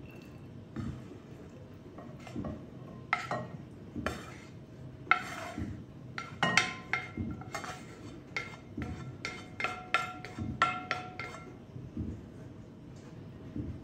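Orzo being scraped with a wooden spoon out of a nonstick pan into a glass bowl: a run of sharp taps and clinks as the spoon and pan knock against the bowl and the pasta falls onto the glass, some clinks leaving a short ringing note. The tapping starts about three seconds in, is busiest in the middle and dies away near the end.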